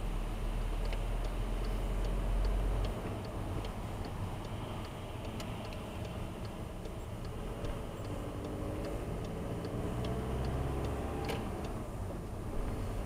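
Car's turn-signal indicator ticking at an even pace, about two ticks a second, over the engine and tyre rumble in the cabin; the ticking stops about ten seconds in.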